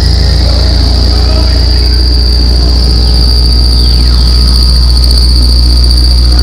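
Live experimental electronic noise: a loud, steady low drone under a high, slightly warbling whine, with faint falling sweeps about halfway through.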